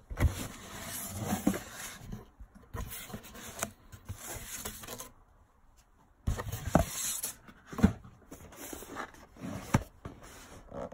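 Cardboard packaging being handled: a paperboard box of sweets being slid and lifted about inside a cardboard box. The sound is irregular scrapes, rustles and light knocks, with a lull of about a second halfway through.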